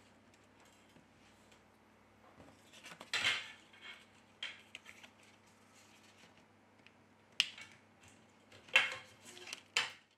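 Faint, scattered scrapes and clicks of a thin metal opening tool prying at the edge of a phone's glass back cover, with a sharper click near the middle and a short cluster of scraping near the end as the tool is set down and a plastic card handled.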